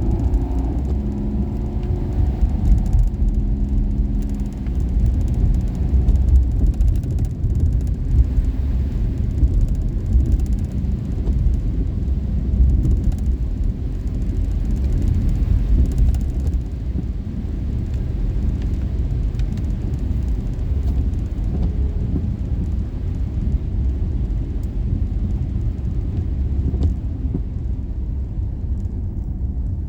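Daihatsu Esse kei car driving, a steady low rumble of engine and road noise. A pitched engine note is heard over it for the first few seconds, then fades into the rumble.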